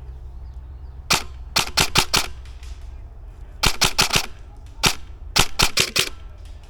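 Airsoft rifle firing some fifteen sharp shots, a single one and then short quick strings of four or five shots.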